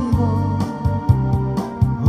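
Music: held keyboard chords over a bass line with a regular beat, between sung phrases.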